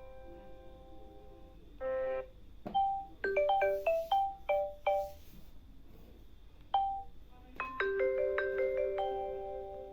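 Samsung Galaxy Tab A 9.7 notification and ringtone sounds played one after another: short marimba-like chimes. A quick run of about seven notes comes about a third of the way in, then a single note, and near the end a new tone starts with a held low note and a few higher notes over it.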